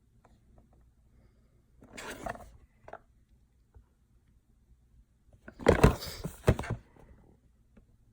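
Handling noise of the skin spa kit's items and packaging: a short rustle and scrape about two seconds in, then a louder burst of rustling with several knocks about six seconds in.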